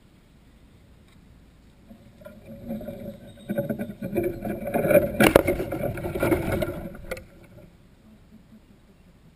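Handling noise from the camera being moved: loud rubbing and scraping close to the microphone for about five seconds, with one sharp knock in the middle, stopping abruptly.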